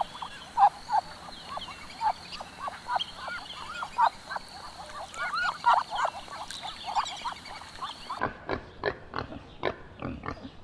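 Many short animal calls, repeated and overlapping. About eight seconds in there is an abrupt switch to pigs grunting in quick succession.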